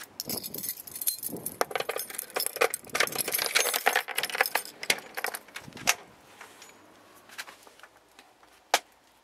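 Keys jangling and clinking with scattered clicks and knocks, dense for about six seconds, then fainter, with one sharp click near the end.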